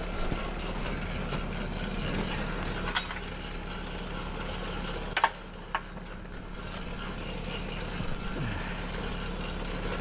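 56 HP Kubota tractor's diesel engine running steadily while it powers the Fransgård log winch pulling a log in. Its low note eases slightly about halfway through. A few sharp metallic clinks of chain sound around the middle.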